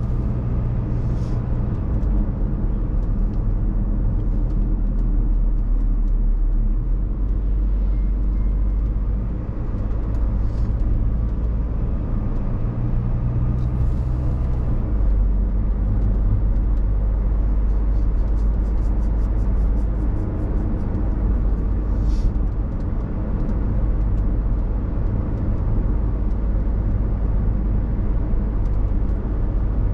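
A car driving along: a steady low rumble of engine and road noise.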